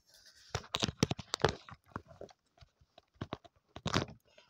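A clatter of sharp clicks and knocks in two bursts, one starting about half a second in and another around three seconds in.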